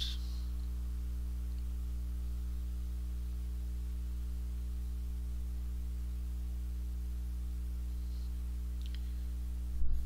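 Steady low electrical hum, a mains-type drone with several evenly spaced low tones. A couple of faint ticks come near the end, and a short thump just before the voice returns.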